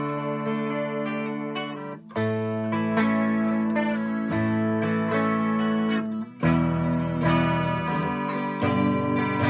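Solid-body 12-string electric guitar played clean through its bridge pickup, strumming a series of ringing chords. The chord changes about every two seconds, with brief gaps about two and six seconds in.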